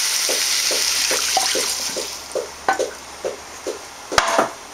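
Bouillon water poured into a hot frying pan of sautéed onions and celery, hissing and sizzling for about two seconds before dying down. A spatula stirs the pan with a regular scrape, two or three strokes a second, and there is a sharp knock near the end.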